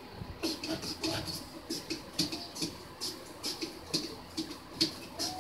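Cucumber being pushed back and forth over the blade of a vegetable slicer into a container: a run of short scraping slicing strokes, about two to three a second.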